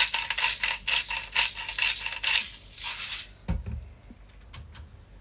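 Salt grinder twisted by hand over a pan, a fast crunching rattle of clicks for about three seconds, then a few light clicks.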